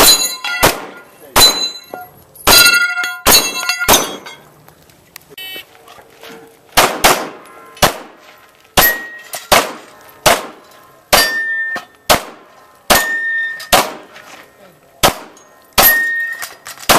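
Pistol shots fired in a steady string, about one every half-second to second, many followed by the ringing clang of steel targets being hit. There is a pause of about three seconds after the first six or so shots, and then the shooting picks up again.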